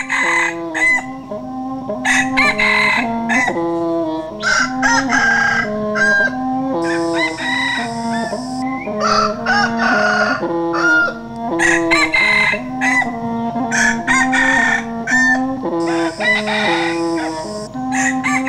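Roosters crowing and chickens clucking, mixed over background music with a repeating stepped bass line.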